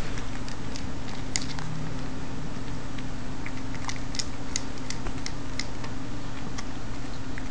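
A cat chewing dry kibble: a scattering of small crisp clicks, irregular and a few per second, over a steady low hum.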